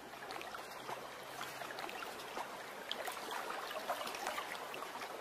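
Lagoon water lapping gently with small irregular splashes and trickles, and a faint low hum in the first half.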